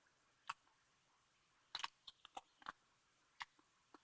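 Someone chewing food close to the microphone: a scatter of short, wet mouth clicks and smacks, a cluster of them in the middle, over a near-silent background.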